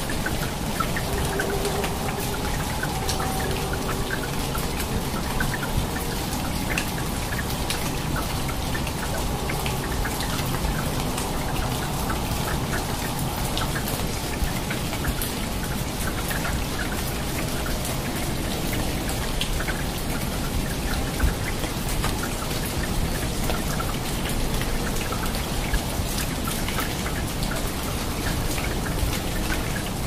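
Steady heavy rain falling on rainforest foliage, with many close individual drops striking leaves as short sharp ticks over an even wash of rain.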